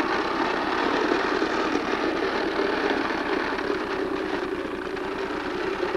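Plastic toy bubble lawn mower pushed along concrete, its wheels and mechanism making a steady rattle.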